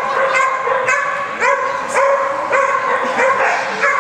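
Dog barking over and over in high, rising yips, about two a second.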